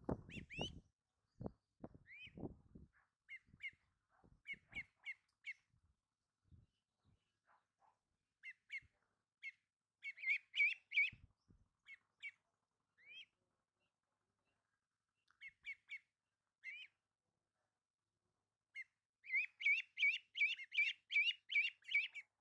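Ducklings peeping: short, high, upward-sliding chirps in scattered runs, then a fast, even run of peeps near the end. A few soft low knocks come in the first couple of seconds.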